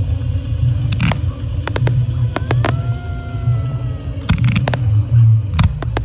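Fireworks going off: repeated sharp bangs and crackles from ground-fired fountains and cakes over a steady low rumble, with one whistling tone that falls slowly in pitch for over a second around the middle.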